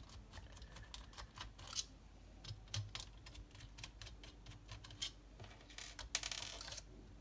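Faint, scattered clicks and taps of a laptop's cooling assembly, the copper heat pipe and fan, being handled and lifted off the motherboard. A brief rustle comes near the end.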